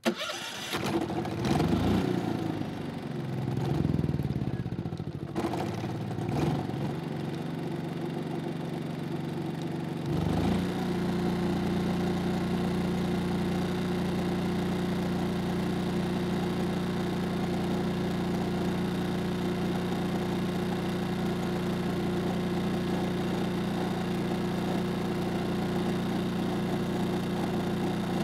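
Yamaha EF3000iSE inverter generator's single-cylinder four-stroke engine starting up, then running with its speed wavering up and down for about ten seconds. It then steps up to a steady, higher speed that holds, as the economy switch is turned off and the inverter holds the engine at fixed high rpm.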